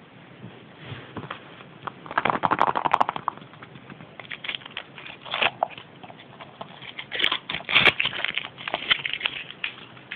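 Foil wrapper of a Kinder Surprise chocolate egg crinkling as it is handled and peeled off, in irregular crackles, densest about two seconds in and again near eight seconds.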